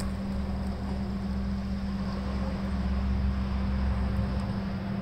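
A steady low machine hum with a constant droning tone and a low rumble underneath, unchanging throughout.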